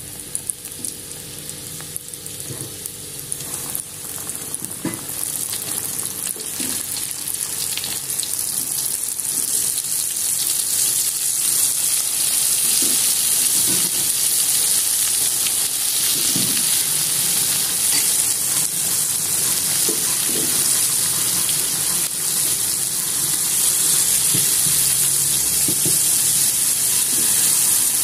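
Battered shrimp deep-frying in hot oil in a wok, a steady high sizzle. It builds over the first several seconds as the pieces are dropped in one at a time, then holds.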